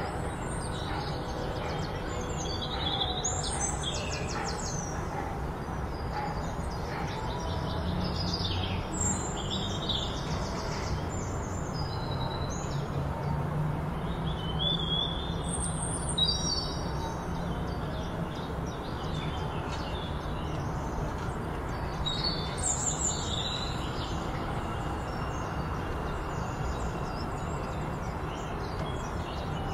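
Small birds chirping and twittering in short scattered calls, over a steady low background rumble.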